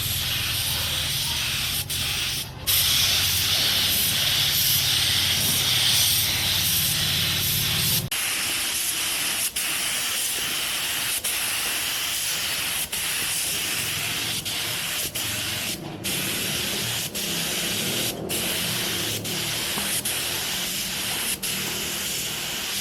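Steady hiss of paint being sprayed, cut by brief pauses in the spray, more often in the second half. A low machine hum runs underneath for about the first eight seconds, then stops abruptly.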